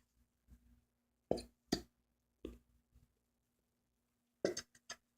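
A few short, sharp knocks and taps from a plastic school-glue bottle being handled and tapped while the glue is emptied out of it, with a quick cluster of taps near the end.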